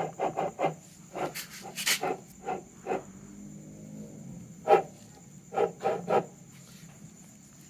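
Scattered sharp metal clicks and knocks of hand tools and parts being worked during the teardown of a Honda PCX final gear case. There is a quick run of clicks at the start, then single knocks, with a short cluster about three quarters of the way through.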